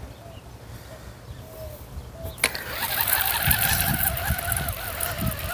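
Fishing reel whirring steadily, starting with a sharp click about two and a half seconds in, as line runs through it while a fish is played on a surface-bait rig.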